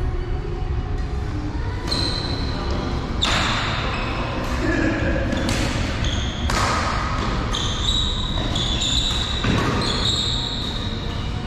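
Badminton rally: rackets striking the shuttlecock with sharp cracks, and shoes squeaking high on the court floor, in a reverberant sports hall.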